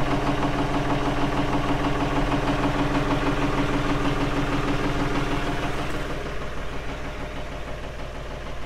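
Valmet 505 tractor's diesel engine idling steadily. A steady hum in it drops out about six seconds in, and the engine runs a little quieter after that.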